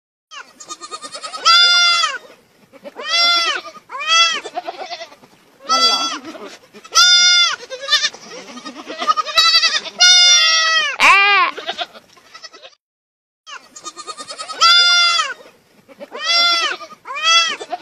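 A young goat kid bleating over and over, loud calls every second or two that each rise and fall in pitch, as the animals compete for a milk bottle. The bleats break off for a moment about three quarters of the way through.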